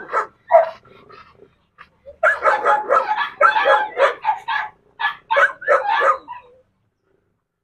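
A dog barking and yipping in a quick, uneven run of short calls, from about two seconds in until shortly after six seconds.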